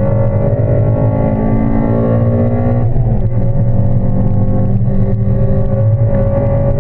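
Honda Civic EP3's VTEC four-cylinder engine pulling hard under acceleration, rising in pitch. About three seconds in there is a short break as it changes gear, then it climbs again.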